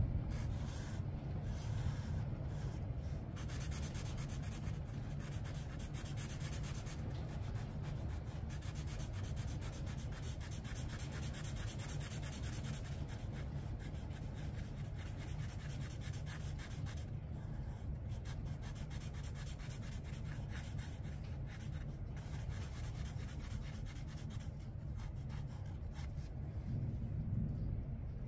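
Black Sharpie marker scribbling back and forth on paper, colouring in a solid spot, with a couple of short pauses, over a steady low hum.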